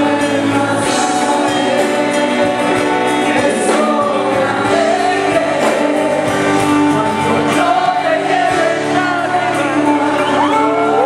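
Live amplified music: a woman singing a ballad into a microphone over band accompaniment through the PA, with backing vocalists joining in.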